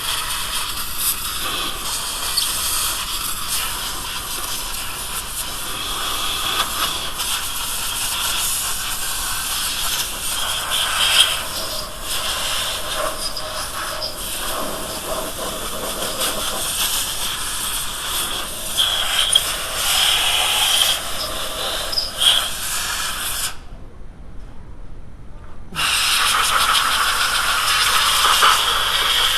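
Steady scraping and rubbing of a tool or abrasive on metal, working the camshaft seal bore of the cylinder head, with a short break about three-quarters of the way through.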